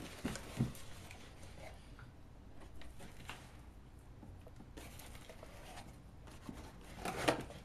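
Cardboard shipping carton and its paper packing being handled as it is opened: faint rustling and scattered taps and scrapes, with a louder rustle of cardboard and paper about seven seconds in.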